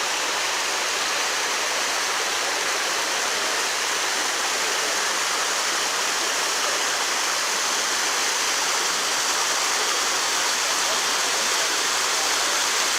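Mountain stream and waterfall rushing over rocks: a steady, even hiss of falling water.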